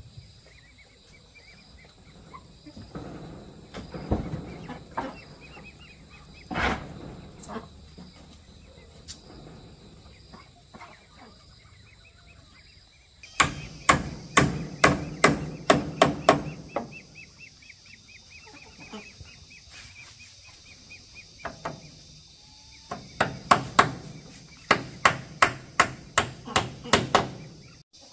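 Hammer nailing the wooden pole railing: two runs of quick, even blows, a dozen or more each, about three or four a second, with a few single knocks earlier. Chickens cluck in the background.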